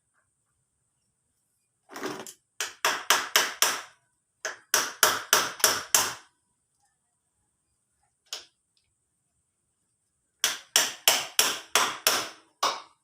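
Hammer blows in quick runs of five to seven strikes, about four a second, with pauses between and a single blow near the middle.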